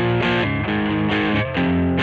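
Squier Vintage Modified Jaguar electric guitar played with distortion: full chords struck and changed in a quick rhythm, several times a second.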